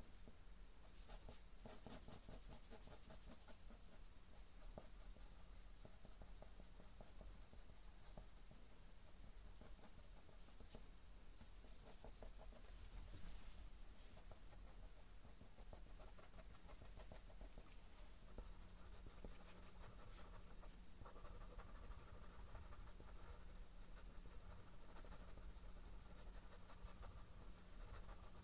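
Faint scratching of a graphite pencil on drawing paper, in rapid back-and-forth shading strokes, with a couple of brief pauses.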